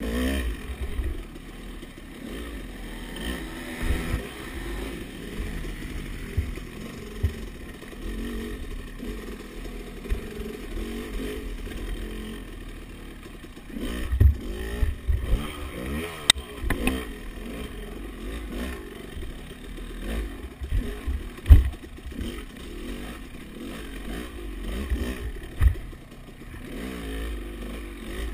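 Dirt bike engine revving up and down over and over as it rides a rough off-road course. It is broken by sharp knocks and clatter from the bike hitting obstacles, the loudest about fourteen and twenty-one seconds in.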